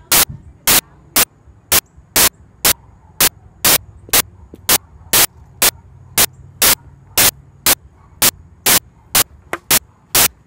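Loud, sharp clicks repeating evenly about twice a second over a faint low hum.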